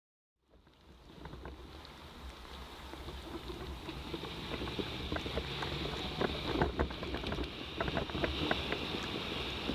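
Riding noise from a bicycle-mounted camera: wind buffeting the microphone over a low rumble and the hiss of tyres on a wet street, with frequent small clicks and rattles. It fades in about half a second in and grows louder over the first few seconds.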